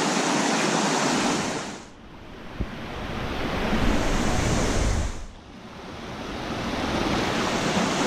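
Rushing water of a rocky stream pouring over boulders, a steady hiss. It fades down sharply about two seconds in and again about five seconds in, building back up each time, with a low wind rumble on the microphone in between.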